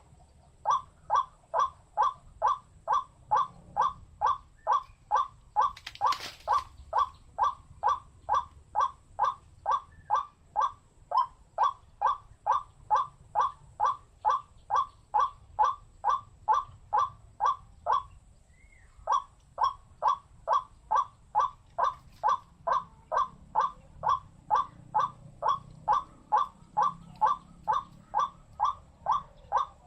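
White-breasted waterhen (burung wak-wak) calling a steady, rhythmic 'wak' note about twice a second, with a pause of about a second roughly two-thirds of the way through. A single sharp click about six seconds in.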